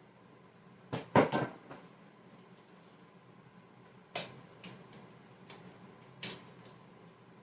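Scattered knocks and clatter of tools and hardware being handled on a workbench: a loud cluster of clanks about a second in, then a few single knocks later on.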